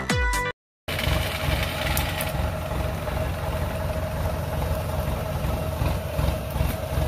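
A short tail of electronic intro music cuts off in the first half-second. After a brief silence, a farm machine's engine idles steadily, with an even low pulse.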